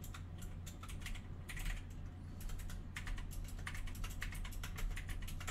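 Typing on a computer keyboard: runs of quick key clicks, busiest in the second half, over a steady low hum.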